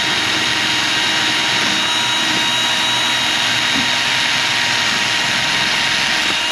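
Cordless drill running flat out with a small abrasive wheel in its chuck, grinding down the steel tab of a brake pad's backing plate: a steady high motor whine over a grinding hiss. The tab is being ground so that a pad that fits a little tight will slide into the caliper bracket.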